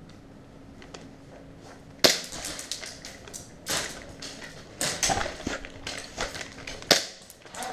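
Airsoft replicas firing: sharp cracks and short strings of shots at uneven intervals, starting about two seconds in after a quieter opening.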